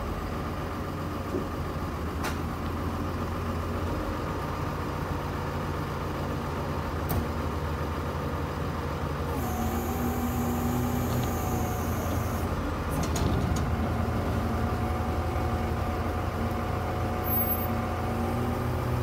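Rollback tow truck's engine running steadily as the truck pulls the box-truck box off its bed, with a steadier higher tone joining about halfway through.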